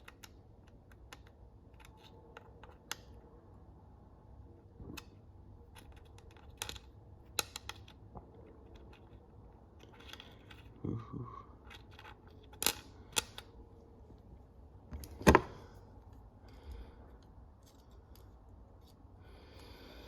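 Scattered clicks and knocks of metal hand tools being handled and set down, with the loudest single knock about fifteen seconds in.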